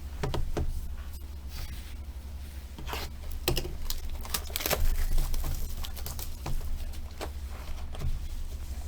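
Plastic wrapping crinkling and tearing as a sealed trading-card box and its packs are unwrapped, with irregular handling clicks and rustles. A steady low hum runs underneath.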